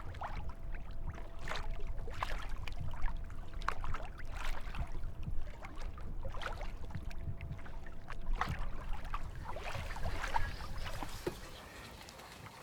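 Kayak paddle strokes dipping and splashing in lake water, with water lapping at the hull. The sound drops away about a second before the end.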